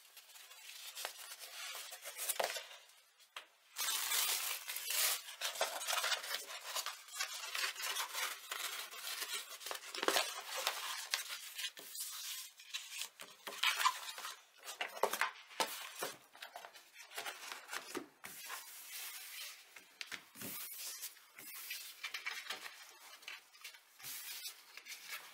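Rustling and crackling of a rolled diamond-painting canvas and its plastic protective film as hands unroll it and smooth it flat, with many small clicks and scrapes.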